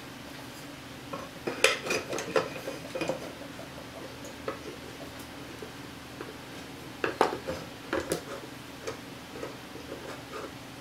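Steel bar clamps and aluminium angle pieces clattering and clicking as they are set against a glued wooden box and screwed tight. There are two bursts of metal clatter, about a second and a half in and again about seven seconds in, then lighter ticks, over a faint steady hum.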